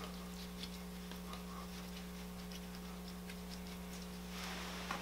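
Faint, irregular small ticks and clicks of a knife and hands working on the meat of a hanging deer carcass, cutting the back strap free along the spine, over a steady low electrical hum.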